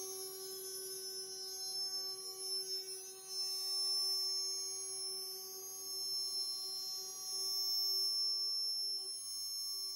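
Homemade CNC router's spindle whining at a steady high pitch as its end mill cuts black HDPE plastic sheet. The cutting gets louder twice for about a second, around three and a half and eight seconds in.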